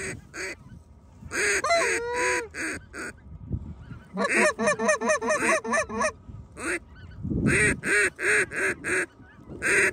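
Goose honking in quick runs of short honks and clucks, four strings of calls with brief gaps between them.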